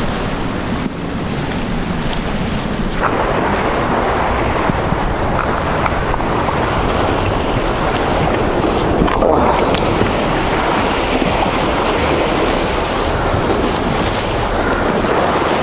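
Surf breaking against jetty rocks, a steady rush of water that grows louder about three seconds in, with wind buffeting the microphone.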